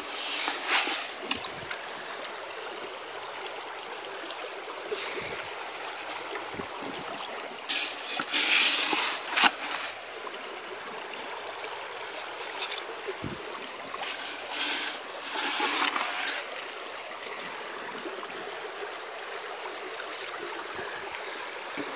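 Stream water running steadily through a sluice box, with louder splashing bursts about a second in, around eight to nine and a half seconds in, and around fifteen seconds in as scoops of gravel and dirt from a bucket are fed into the sluice.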